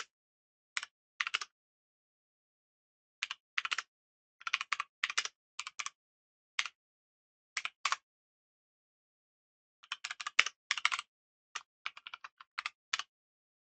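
Computer keyboard typing in short bursts of rapid keystrokes, with pauses of a second or two between bursts.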